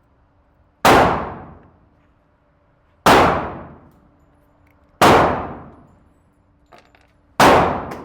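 Four pistol shots about two seconds apart, each a sharp bang with a short echoing tail off the range walls, and a faint metallic click between the third and fourth.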